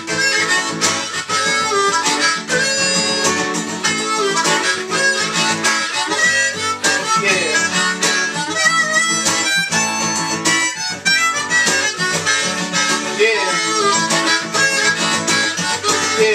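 Harmonica playing an instrumental solo over a strummed acoustic guitar.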